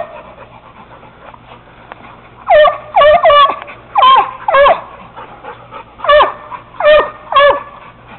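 Treeing Walker coonhound pup barking treed at a caged raccoon: about eight short, high barks, mostly in quick pairs, beginning about two and a half seconds in.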